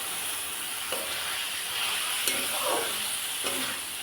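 Amaranth greens (nota shak) sizzling as they fry in a pan while being stirred, with a few short knocks of the spatula against the pan.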